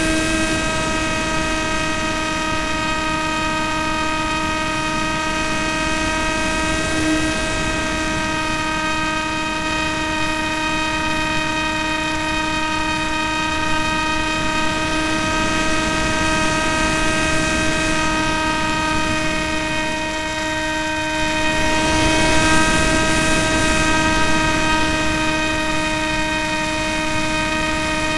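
Electric motor of an AXN Floater RC plane whining steadily at constant pitch, heard through the plane's onboard keychain camera, with wind rushing over the airframe. The rush dips briefly about two-thirds of the way through, then swells louder for a few seconds.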